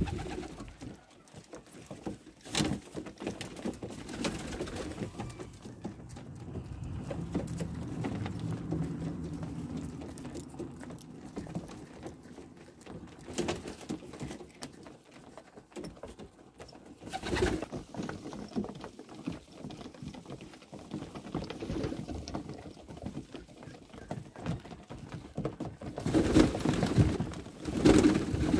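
Domestic pigeons cooing. A few sudden wing flaps break in, with a louder flurry of flapping near the end.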